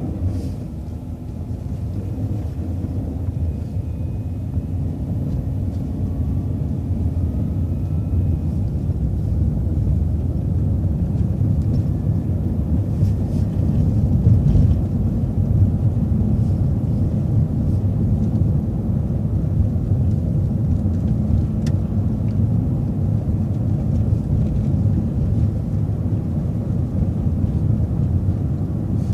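MCO ViewMaster bus pulling away from a stop sign and cruising: a low engine and road rumble that builds as it gathers speed, then holds steady.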